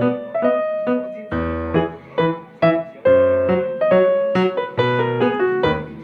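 Background music: piano playing a gentle melody over chords, with notes struck about twice a second.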